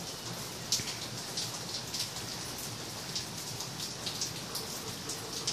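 Steady rain falling, with irregular sharper drops landing a few times a second.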